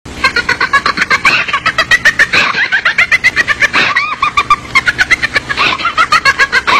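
Horror-doll laughter sound effect: a laughing baby doll's high-pitched giggling, a fast unbroken string of short 'ha' pulses, about five or six a second, starting abruptly.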